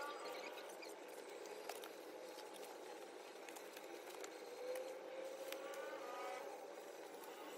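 Faint engine of a passing vehicle, its pitch sliding up and down twice, near the start and again about five seconds in. Light clicks and paper sounds come from handling the album's photobook, inserts and photocards.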